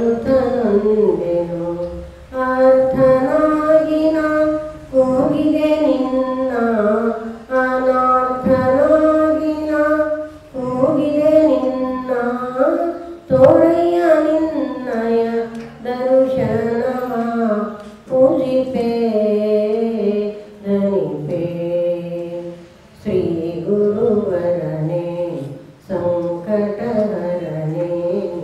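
An elderly woman singing a Kannada devotional song solo into a handheld microphone, in short phrases of two to three seconds with brief breaks between them.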